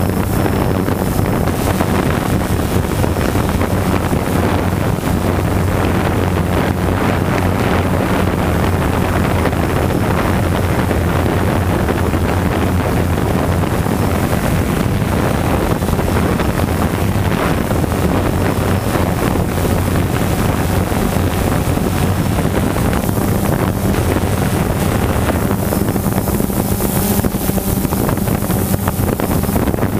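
DJI quadcopter's motors and propellers buzzing steadily in flight, heard through its own onboard camera, with a low hum under wind noise on the microphone.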